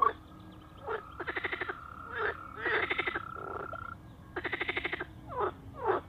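A toad calling: three pulsed trills, each under a second long at about a dozen pulses a second, with short sweeping chirps in between.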